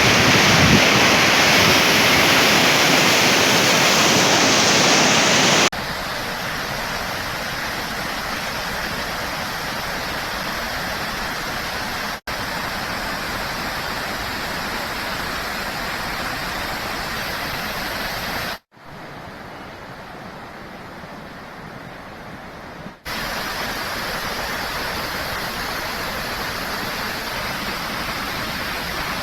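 Flood-swollen mountain stream rushing at full flow, a loud, steady noise of water. The level steps abruptly at about 6, 12, 19 and 23 seconds as the shots change, and it is quieter for a few seconds in the second half.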